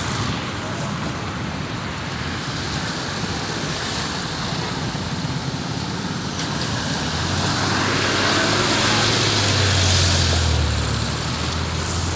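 Road traffic noise, a steady rush, with a motor vehicle passing close by: its engine hum grows louder from about seven seconds in, peaks around ten seconds, then fades.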